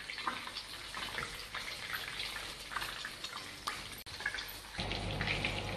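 Meatballs sizzling and crackling in hot oil in a frying pan as they are turned with metal tongs, with small clicks of the tongs against the pan.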